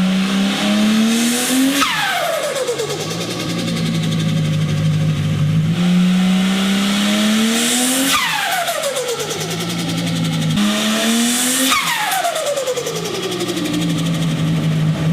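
Turbocharged car engine revved three times. Each time the throttle closes, a whistle falls steeply in pitch and rapid turbo flutter follows as the turbo spools down against a closed throttle.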